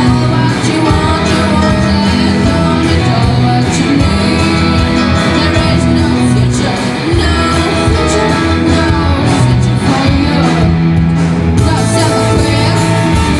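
Live rock band playing loud, with electric guitars, keyboards and drums under a lead singer, heard from among the audience in a large hall.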